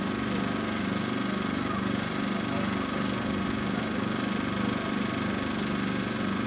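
A small engine running steadily at a constant speed, with a fast, even putter.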